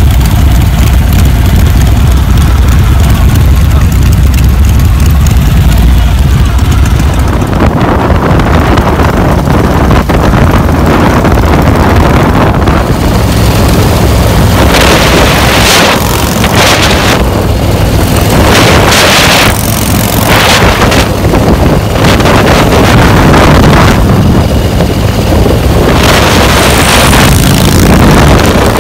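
Harley-Davidson chopper motorcycles running with a deep low rumble. About seven seconds in they are riding at highway speed, and engine and road noise are largely covered by wind buffeting the microphone in repeated gusts.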